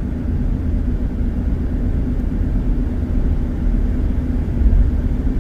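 Steady low rumble of a car driving at highway speed: engine and tyre-on-road noise heard from inside the cabin, with a constant hum underneath.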